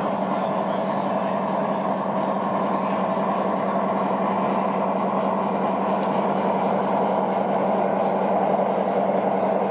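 Steady diesel engine drone from a sound-fitted (DCC sound) model diesel locomotive played through its small on-board speaker, with a constant low hum underneath.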